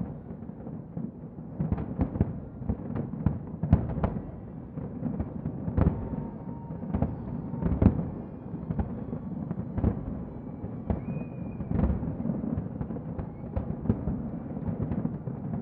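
Aerial fireworks shells bursting in a large display: many sharp booms at irregular intervals, at times several a second, over a continuous low rumble.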